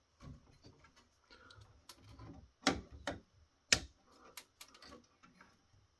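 Sharp clicks and snaps of side cutters working on the spring-loaded heatsink push pins of a circuit board, cutting them off, with light handling noise between the clicks. The loudest snaps fall in the middle of the stretch.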